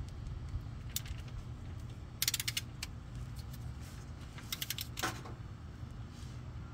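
Torque wrench ratcheting on an oil drain plug: a quick run of clicks about two seconds in and another cluster near five seconds as the handle is swung back and forth, with a few single clicks, over a low steady rumble.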